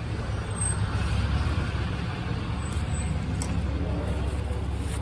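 Road traffic, a steady low rumble of passing vehicles that swells a little about a second in, with a few faint light clicks over it.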